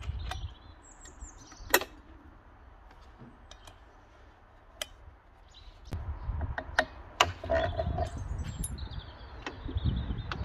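Sharp metal clicks and knocks, a second or more apart, from hands fitting the blade onto a miter saw's arbor, over a low rumble.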